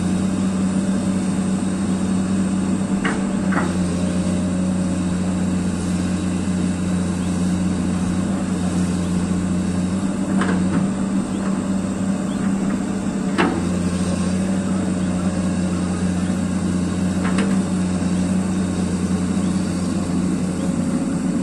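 Amphibious excavator's diesel engine running steadily, with a handful of sharp metallic knocks here and there.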